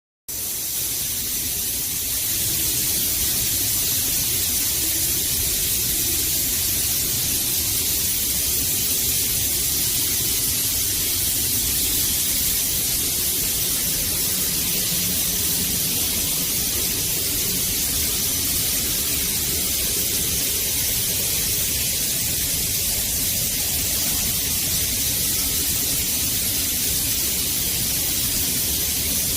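Industrial misting fan running, its compressed-air atomising nozzles spraying fine water mist with a steady loud hiss over a low rumble. It starts abruptly just after the beginning and then holds level.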